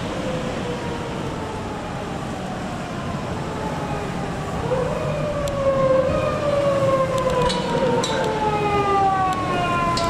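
Motorcade sirens wailing, long tones falling slowly in pitch. About five seconds in a louder siren rises and overlaps the others, over the rumble of passing vehicles.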